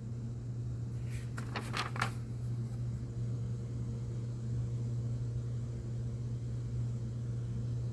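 Pages of a hardbound hymnal being turned: a few quick papery rustles about a second in, over a steady low hum.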